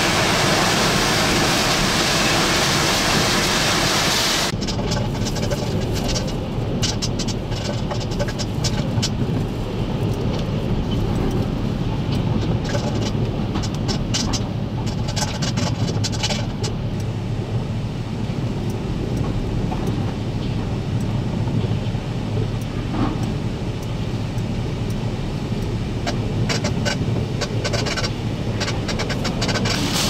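Extreme hurricane eyewall wind roaring on the microphone with a full, hissing rush. About four seconds in it switches to a duller, muffled rush heard from inside a vehicle, with many sharp ticks of wind-driven rain and debris striking it.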